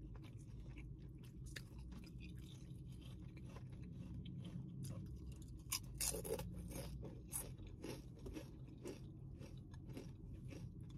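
Chewing a mouthful of turkey sub with shredded lettuce: a run of small crunches and clicks, loudest about six seconds in, over a steady low hum.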